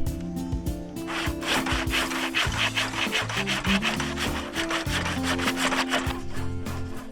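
Saw cutting through wood in quick, repeated strokes, starting about a second in and stopping about a second before the end, over background music.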